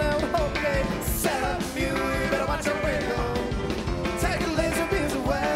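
Live rock band playing an instrumental passage, with electric bass and keyboards over a steady beat.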